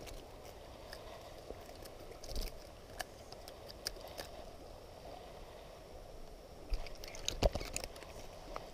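River water flowing steadily at a low level, with a few faint clicks of handling. About seven seconds in comes a short cluster of knocks and a small splash as a caught fish is flung into the water.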